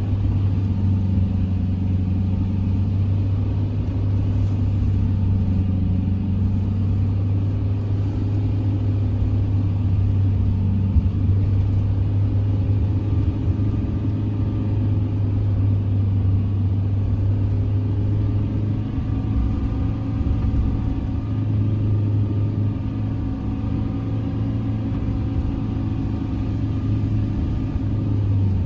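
Campervan driving along a road: a steady engine drone and road rumble, with engine tones that slowly rise and fall as the speed changes.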